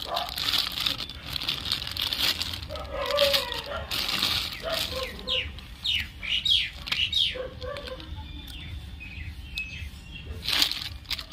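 Thin clear plastic bag crinkling and rustling in irregular bursts as hands work a toy tractor out of it.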